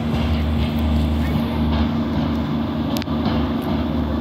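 Class 143 Pacer diesel multiple unit pulling away, its underfloor diesel engines giving a steady low drone with a held tone over it. A single sharp click about three seconds in.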